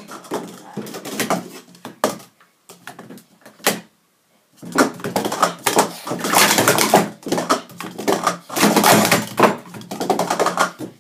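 Plastic sport-stacking cups clattering rapidly as they are stacked up and knocked back down on a stacking mat, a dense run of clicks and knocks with two short pauses near the start, during a cycle sequence.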